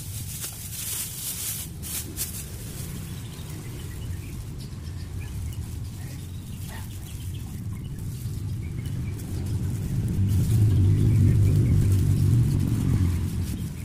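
Plastic bags crinkling as a knotted black bag is untied and a clear bag is pulled out, over a steady low rumble that grows louder about ten seconds in.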